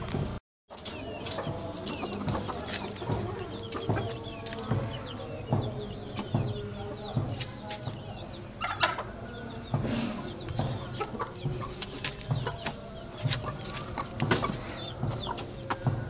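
Chickens clucking in a coop, with a steady stream of short high calls over repeated low clucks.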